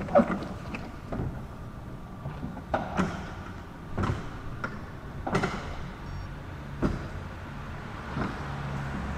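Electric roller shutter garage door opening: a steady motor hum with a sharp clack about every second and a half as the slats roll up.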